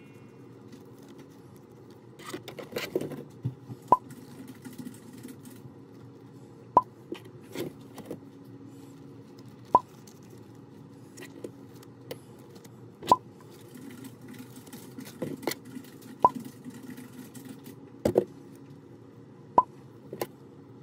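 Soft rubbery spiked fidget bracelets being squeezed and handled, with quiet rubbing and clicking. A short, bright pop comes about every three seconds.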